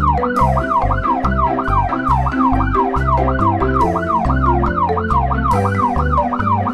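A fast yelp siren sweeping up and down in pitch about three times a second, without a break. Background music with a steady, stepping bass line plays underneath it.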